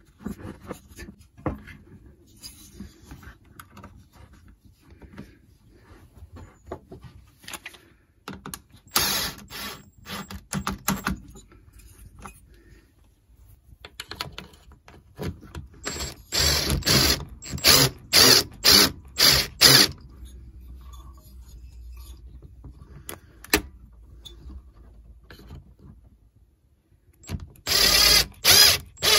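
A long-shafted driver turning the carburetor mounting bolts into a Stihl TS410 cut-off saw, amid scattered clicks and knocks of metal on plastic. Loud spells of driving noise come about 9 s in, in a run of short bursts from about 16 to 20 s, and again near the end.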